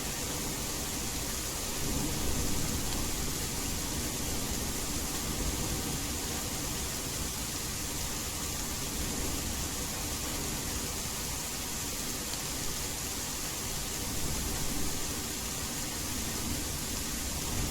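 Steady rain hiss with low rumbles of distant thunder swelling about two seconds in and again near the end.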